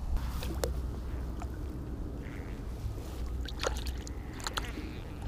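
Shallow pond water sloshing and splashing in short bursts as a largemouth bass is let go at the bank by hand, over a low wind rumble on the microphone.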